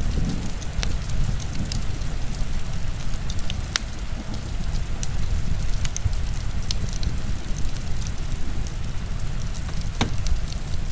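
Heavy rain falling steadily with a deep rumble, and a wood fire crackling over it in scattered sharp pops, one louder pop near the end.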